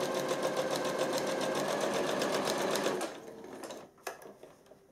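Domestic electric sewing machine stitching a single hem at a steady rapid pace, stopping about three seconds in, followed by a few light clicks as the fabric is handled.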